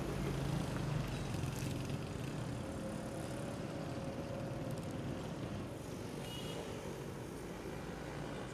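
Steady low rumble of city traffic, with a low hum that is strongest in the first couple of seconds.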